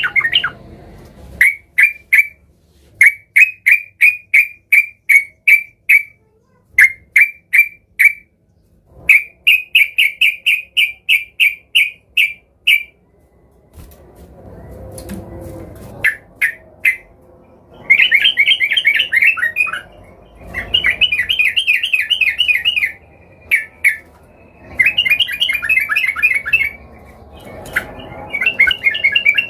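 Yellow-vented bulbul (trucukan) singing hard. It gives runs of short, sharp, repeated notes at about three a second, in phrases with pauses between them. From about halfway on these turn into faster, chattering bursts.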